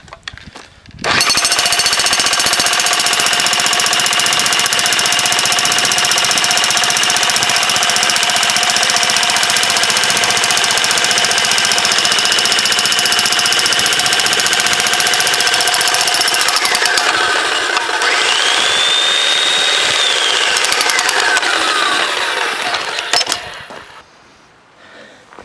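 Jackhammer hammering continuously on a hard drive, loud and very fast. It starts about a second in and stops near the end. In its later part a whine rises, holds and falls for a few seconds.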